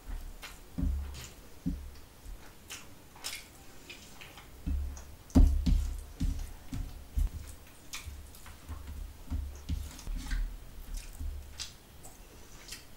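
Eating sounds: fingers squishing rice mixed with gravy on a steel plate and wet chewing. Irregular soft clicks and low thumps, the loudest about five and a half seconds in.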